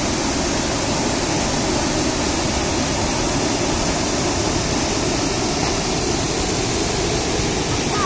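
Swollen river water pouring over a low concrete weir and churning below it: a loud, steady rush of falling water.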